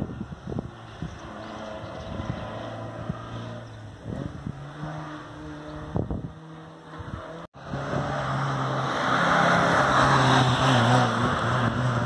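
Historic rally car engines at speed. First a distant car's engine runs steadily under gusts of wind on the microphone. After a sudden break about halfway, a closer car is heard louder, its engine and tyre noise rising and pulling away.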